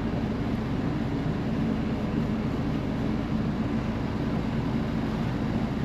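Retrofitted air conditioner running steadily inside a Scamp 13 mini camper, a constant hum and blowing noise.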